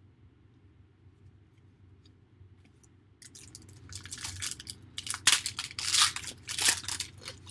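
Foil trading-card pack wrapper being torn open and crinkled by hand: a quick run of sharp crackles and rips that starts about three seconds in and grows louder.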